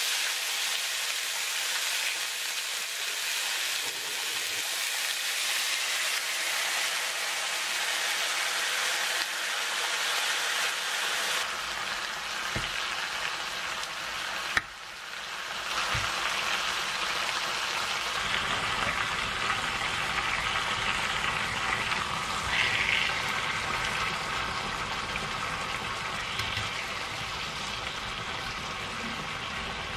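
Pork jowl slices sizzling steadily on a hot griddle pan. About halfway through there is one sharp click. After it the sizzling carries on with more low-pitched sound, as spicy red-sauced webfoot octopus and shrimp cook in the middle of the pan.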